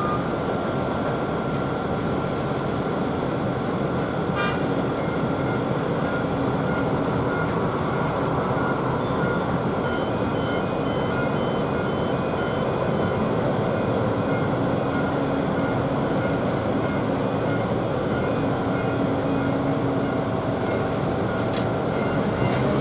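Steady airport apron noise around a parked Boeing 777 during ground servicing: a constant roar of aircraft and ground-support equipment, with faint repeated warning beeps from service vehicles through the middle.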